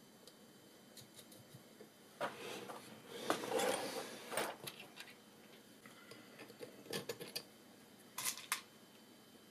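Small hardware being handled on a desk: a stretch of clattering and rubbing from about two to five seconds in, then a few short clicks near the end.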